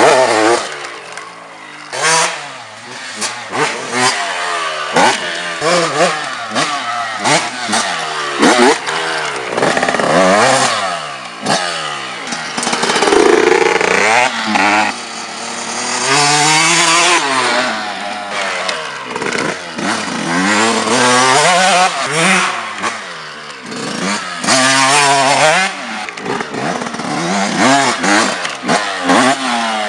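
Yamaha YZ 125 single-cylinder two-stroke motocross bike being ridden hard off-road, its engine revving up and falling back again and again as the throttle is worked.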